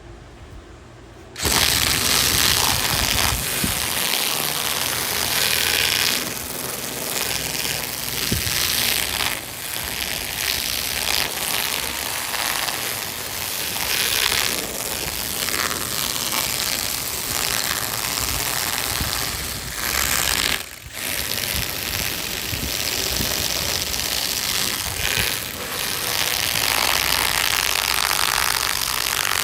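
A power carving tool running and cutting into wood, starting about a second and a half in, with its pitch and loudness shifting as it bites and eases off. It pauses briefly about 21 seconds in.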